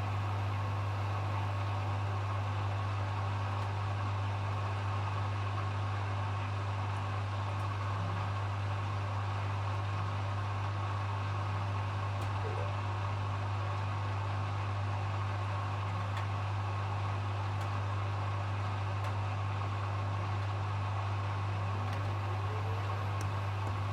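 Hoover HW411AMC washing machine on its final spin, the drum and motor spinning at a steady speed with a constant low hum.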